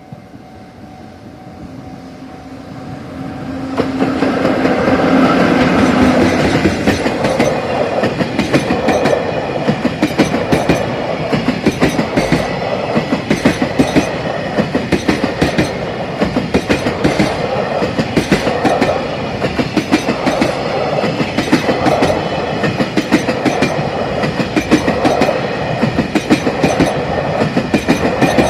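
Freight train hauled by an EF66 electric locomotive passing at reduced speed: it grows louder over the first four seconds as it draws near, then the wagons go by close with a steady, rhythmic clickety-clack of wheels over rail joints.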